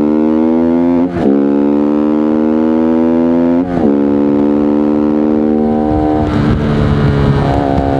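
Voge 125R's single-cylinder 125 cc engine pulling under acceleration, its note rising through the revs, dipping briefly as the rider shifts up about a second in and again near four seconds in. About six seconds in a rough noisy rush covers the note for a second or so before it settles to a steady pitch.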